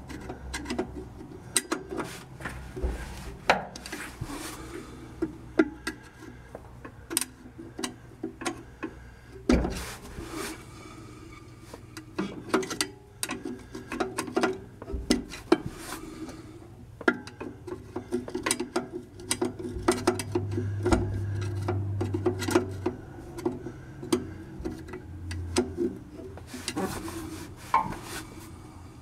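Repeated metal clicks and scrapes from a screwdriver prying at the rear drum-brake adjuster through the backing-plate slot of a 1949 Chevy 3100's Huck brakes. Under them runs a rubbing sound, the brake shoes dragging on the drum.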